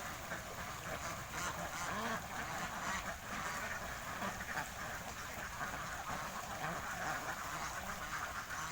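A large flock of ducks quacking together, many overlapping calls in a continuous chatter.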